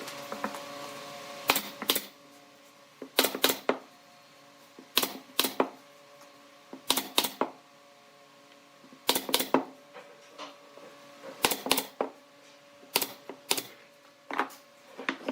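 Sharp knocks in clusters of two or three, a cluster about every two seconds, over a steady hum.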